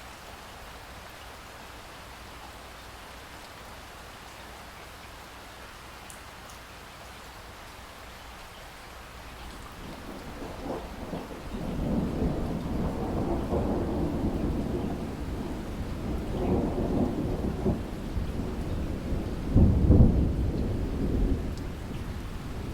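Steady rain falling, then a long roll of thunder rising about halfway through and rumbling in several swells, with its loudest clap near the end before it dies away.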